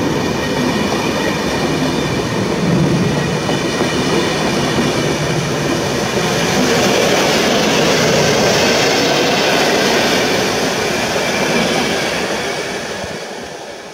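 PKP Intercity passenger coaches rolling past close by on the platform track, their wheels rumbling steadily over the rails with a faint high ringing over the noise. The sound fades away from about twelve seconds in as the last coach clears.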